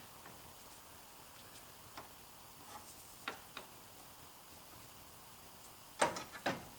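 A wrench clicking and knocking against a seized fitting on the car's AC line. There are a few sharp single clicks, then a louder cluster of metal knocks about six seconds in.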